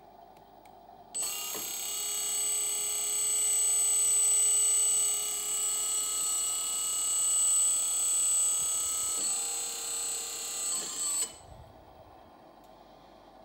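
Hydraulic pump of an RC tipper truck whining steadily while it drives the telescopic ram that raises the dump bed. It starts about a second in, changes tone slightly near the end, and cuts off suddenly at about eleven seconds.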